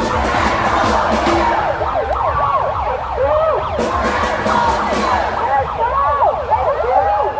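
Several siren wails overlapping, their pitch sweeping rapidly up and down, amid a street crowd, with a few sharp clicks.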